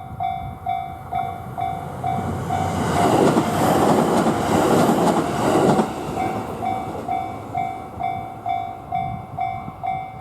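Railway level crossing warning bell clanging at about two strikes a second. Three seconds in, a train passes for about three seconds, louder than the bell. The bell stops at the very end.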